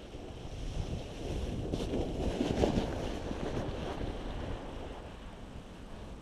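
A sled sliding down a packed-snow track, its rushing hiss over the snow swelling as it passes close about two and a half seconds in, then fading as it slides away. Wind rumbles on the microphone.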